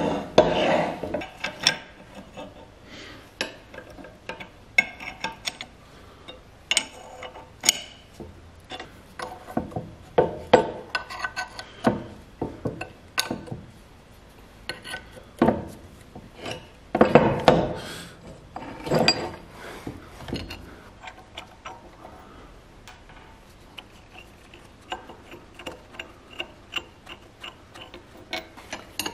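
Rusty metal bench vise being taken apart by hand: irregular metal clanks, clinks and scraping as its parts are handled and set down on a wooden workbench, with a few louder knocks.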